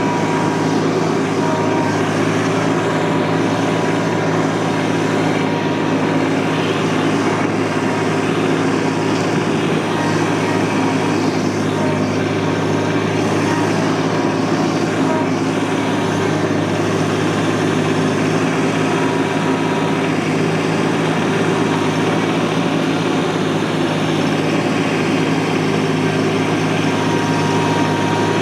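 An engine running at a steady speed: an even, unchanging drone with no revving.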